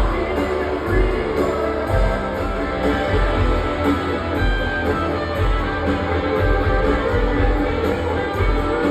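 Live rock band playing: electric guitars strummed over bass, with a low drum beat thudding about once a second.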